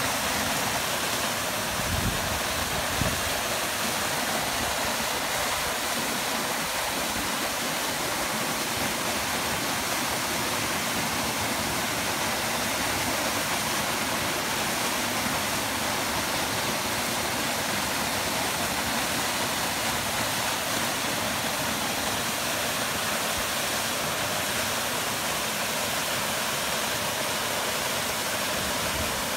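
Tall waterfall plunging into a shallow rock pool: a steady hiss of falling and splashing water. Two brief low thumps come about two and three seconds in.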